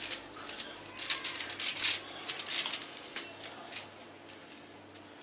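Aluminium foil crinkling and crackling as it is handled along the edge of a baking tray, in quick clusters of crackles that are loudest in the first two seconds and then thin out.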